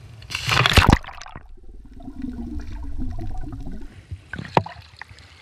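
A person plunging off a boat into the sea: a loud splash about half a second in, then muffled bubbling and gurgling heard from underwater, with a few sharp clicks near the end.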